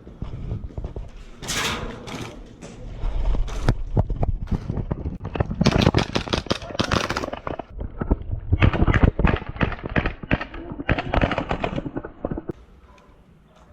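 Gas blowback airsoft pistols, Glock type, firing: many sharp cracks in quick strings, fading out near the end.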